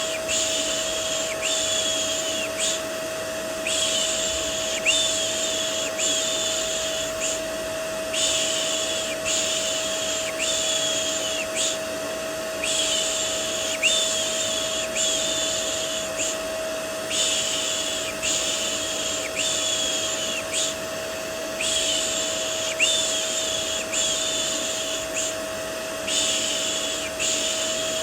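Vacuum cleaner white noise, a steady motor hum with one fixed tone. Over it, rhythmic 'shh' shushing sounds for soothing a baby come in runs of three or four, with a short pause between runs.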